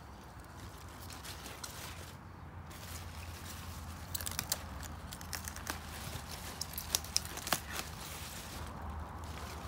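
Crisp rustling and snapping of leaf lettuce being picked by hand. There are a few sharp cracks about four seconds in and again around seven seconds, as leaves are broken off the plant.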